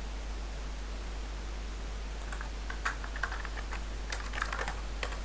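Computer keyboard typing: irregular keystrokes starting about two seconds in, over a steady background hiss and a constant low hum.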